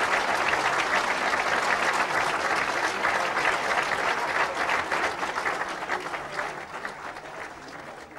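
Audience applauding, the clapping dying away over the last few seconds.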